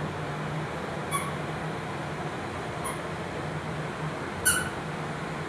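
Three short, high-pitched squeaks about one, three and four and a half seconds in, the last the loudest, over a steady low background hum.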